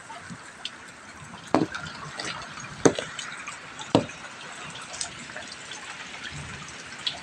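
Steady rain falling, with large drops hitting a surface in louder single plops, three standing out at about a second and a half, three and four seconds in.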